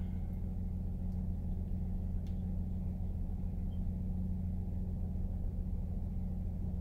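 A steady low mechanical hum, with a faint single tick about two seconds in.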